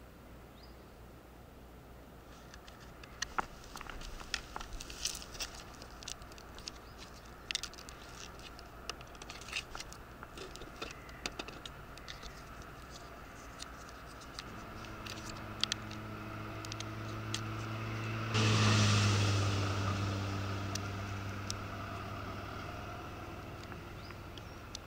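Hands handling a 1:10 electric RC car chassis and its battery: scattered clicks, taps and scrapes of plastic parts and connectors. A low hum comes in about halfway through, and a loud rushing noise rises suddenly about three-quarters of the way in, then slowly fades.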